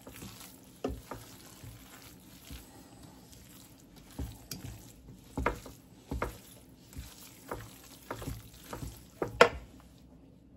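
Wooden spoon stirring a thick, wet dressing mixture in a stainless steel mixing bowl. The mixture squelches softly under irregular knocks and scrapes of the spoon against the bowl, with the loudest knock near the end.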